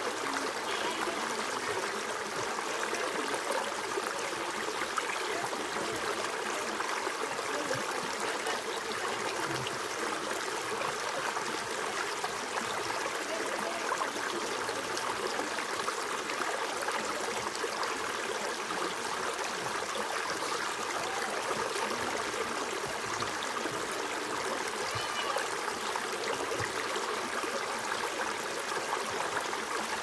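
Shallow creek running over rocks and small cascades: a steady, unbroken rush of flowing water.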